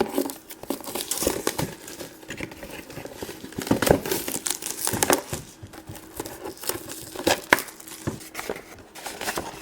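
A small toy box being opened and its contents unpacked: plastic packaging crinkling and rustling in irregular crackles, with light handling clicks.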